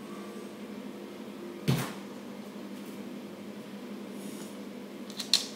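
A door bumped shut: a single dull thump a little under two seconds in, then a sharp click near the end.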